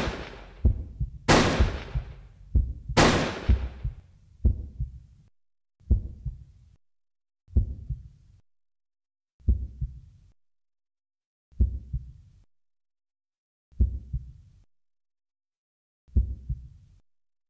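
Three gunshot sound effects about a second and a half apart, each ringing away, followed by a slow heartbeat: low double thuds about every two seconds, spaced a little further apart toward the end.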